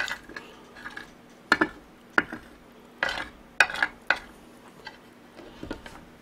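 Spoon scraping and clicking against a plate in about half a dozen short, separate strokes, scooping up the last scraps of food.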